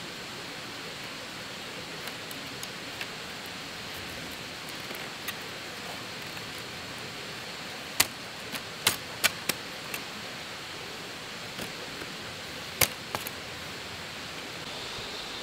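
Split bamboo strips clicking and snapping sharply as they are woven into a basket, a handful of clicks in the second half, over a steady rushing hiss.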